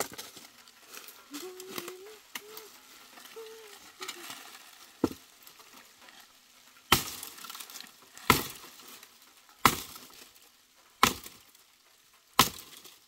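Sharp knocks of a stick striking at the base of a tree, about one every second and a half, five in the latter half. They come after fainter clicks and cracks of dry twigs and stones being handled.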